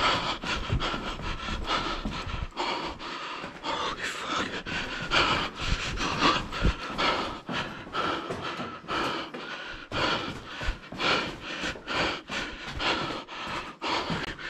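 A person panting hard, breathing fast and noisily in quick repeated breaths, with a few low thuds of movement.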